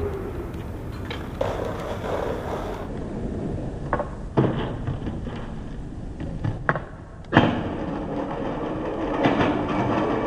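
Skateboard rolling, with several sharp clacks of the board. Near the end the trucks grind down a steel handrail in a scraping rush that grows louder.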